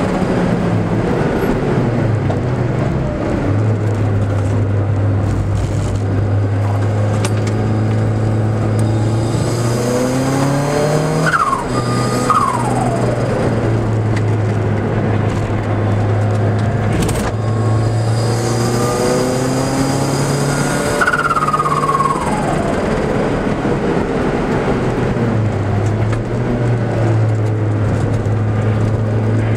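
Car engine heard from inside the cabin under hard track driving. The revs climb and then fall away sharply twice, about a third and about two thirds of the way through.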